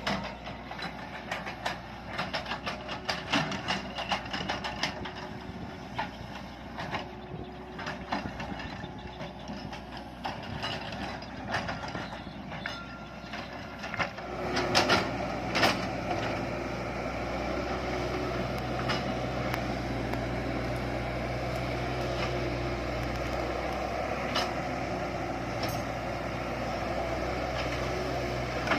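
Heavy machinery at work: scattered metallic clanks and knocks over a low rumble, then, about halfway through, a steady engine running.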